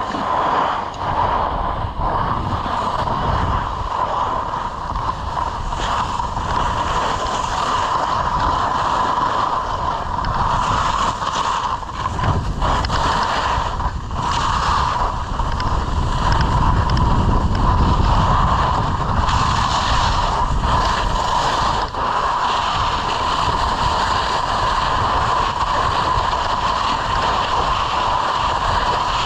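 Wind rushing over the microphone of a moving skier, with the hiss of skis sliding over packed snow; the low wind rumble is strongest a little past halfway.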